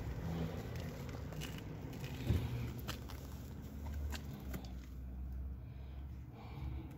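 Handling noise inside a car: rustling, scraping and scattered clicks as someone moves about with the camera, with one short thump about two seconds in, over a low rumble.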